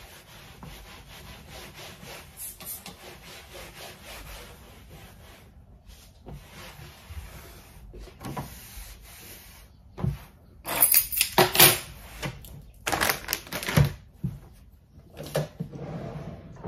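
Rubbing and wiping of household cleaning: a cloth scraping over surfaces and objects being handled, low and continuous at first, with louder bouts of rubbing and handling noise a little past the middle.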